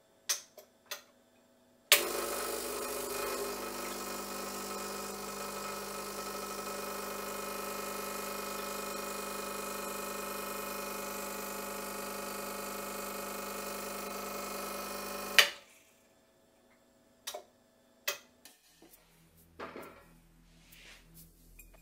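Gaggia Classic Pro's vibratory pump running steadily for about thirteen seconds, pumping against a portafilter fitted with a pressure gauge, starting and stopping with a sharp switch click. Two short switch clicks come before it and a few light knocks after.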